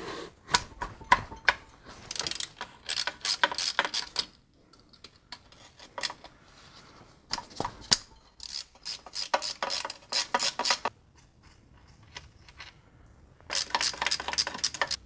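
Hand ratchet clicking in several quick bursts, with separate clicks between them, as E10 Torx bolts are turned out where the transmission bolts through into the E46 BMW's oil pan.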